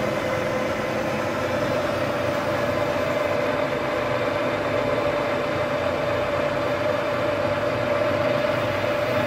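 Metal-working lathe running with its chuck spinning during a taper-turning cut: a steady hum of motor and gearing with one constant whine standing out.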